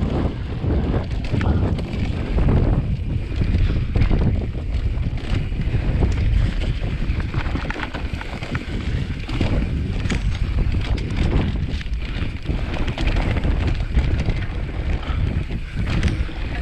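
Wind buffeting the microphone while a mountain bike rattles and knocks over rough ground, with frequent short clicks and thuds.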